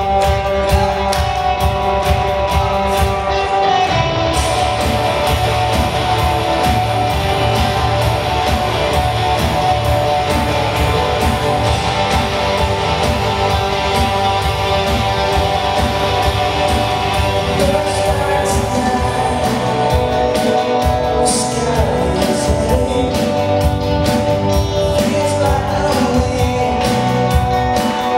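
Live rock-style band music: electric guitar, bass and drums playing a song, with sung vocals.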